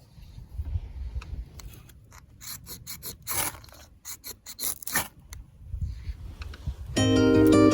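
A run of short, irregular scraping strokes, something rough being rasped or scraped by hand. Plucked-string background music starts near the end.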